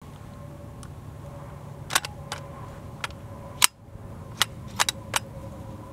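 A string of sharp clicks and clacks from an MP35 submachine gun being handled, about ten in all at uneven spacing. The loudest clack comes a little past halfway through.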